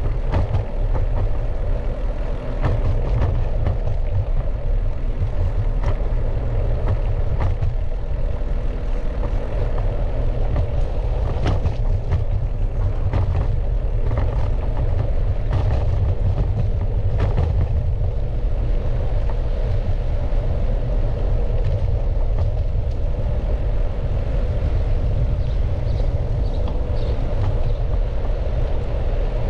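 Steady low rumble of wind and road noise from riding, with scattered clicks and knocks.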